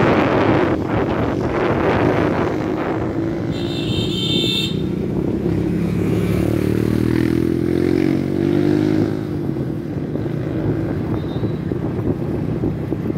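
Motorbike engine running while being ridden along a road, its pitch drifting up and down with speed and climbing between about six and nine seconds in. A brief high-pitched beep sounds about four seconds in.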